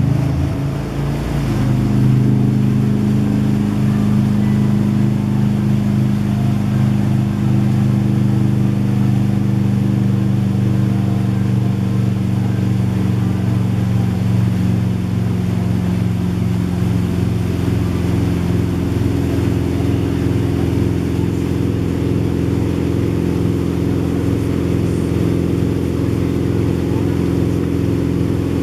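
Wake boat's engine running under load, rising in pitch in the first second or two as it pulls the rider up out of the water, then holding a steady cruising speed, with water rushing in the wake.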